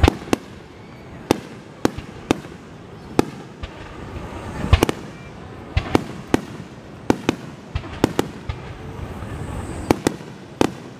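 Aerial fireworks shells bursting in a rapid barrage (a starmine), about twenty sharp booms at roughly two a second, unevenly spaced, over a steady background murmur.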